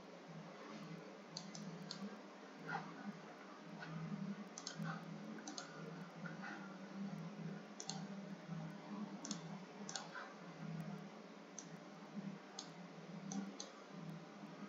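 Computer mouse button clicking: about a dozen faint, irregularly spaced clicks over a steady low hum.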